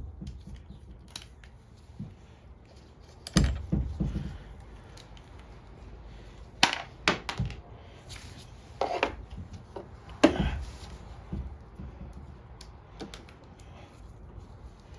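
Metal parts and hand tools clinking and knocking while a carburetor is fitted to a small mower engine, in scattered separate strikes, the loudest a dull knock about three seconds in and sharp clicks around seven and ten seconds in.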